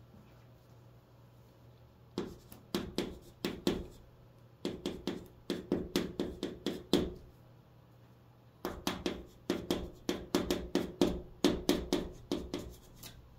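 Chalk writing on a chalkboard: a quick run of short, sharp taps and scrapes, one for each stroke of the handwriting, in three bursts with short pauses between.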